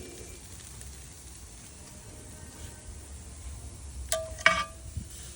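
Food sizzling on a barbecue, with two sharp metallic clinks about four seconds in, the second the louder, each ringing briefly.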